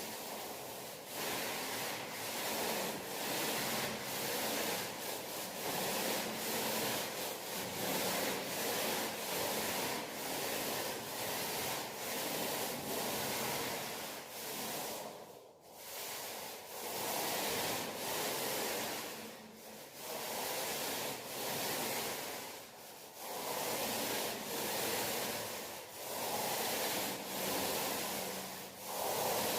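Small paint roller rolling paint onto a wall in quick back-and-forth strokes, a rhythmic rubbing hiss of about two strokes a second, with short pauses for reloading.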